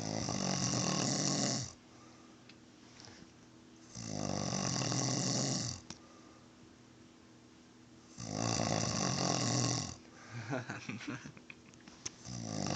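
A man snoring heavily in his sleep: three loud snores of under two seconds each, about four seconds apart, with a fourth starting near the end. He is said to stop breathing 23 times an hour while asleep.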